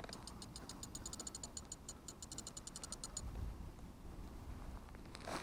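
Fishing reel clicking rapidly, roughly ten ticks a second for about three seconds and then stopping, as a hooked carp is played.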